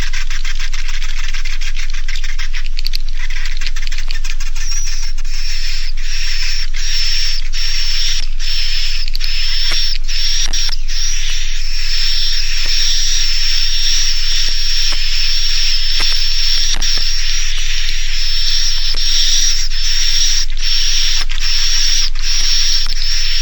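A swiftlet roosting-call recording: the dense buzzing twitter of many edible-nest swiftlets, with a steady high whistle joining about five seconds in and quick irregular clicks throughout. It is a lure call played in swiftlet houses to make young swiftlets settle and roost.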